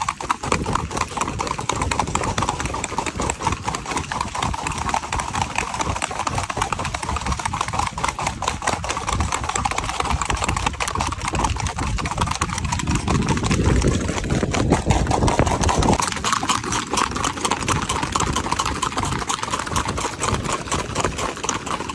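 Hoofbeats of a ridden horse on a paved road: a rapid, even clatter of hooves striking asphalt at a fast gait. A few seconds past the middle a rising hum joins in and cuts off suddenly.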